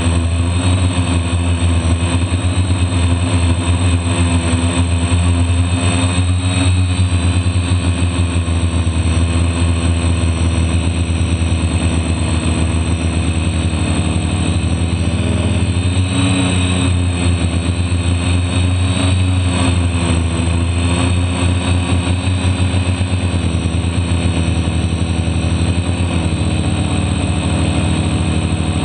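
Loud, steady buzz of a DJI F450 quadcopter's four brushless motors and propellers, heard from a camera on the craft itself, its pitch wavering slightly as the throttle changes.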